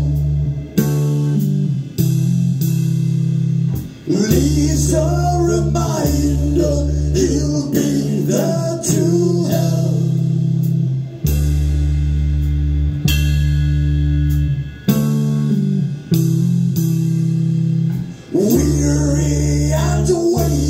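A rock band playing live, led by heavy sustained electric bass notes that break off and restart every few seconds. A voice sings through the middle stretch and again near the end.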